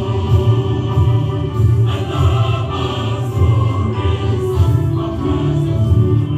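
Group singing over music with a steady heavy bass, like a choir or gospel-style song.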